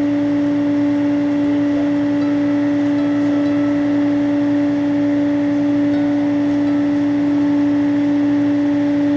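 A loud, steady electronic tone: one low pitch with a fainter overtone above it, held without any change. It is laid over the sound track and masks the talk with the delivery driver.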